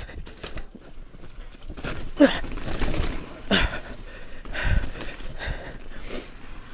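Downhill mountain bike rattling and knocking as it rolls over wet, slick rock slabs and roots, with irregular clatter from the frame and tyres throughout.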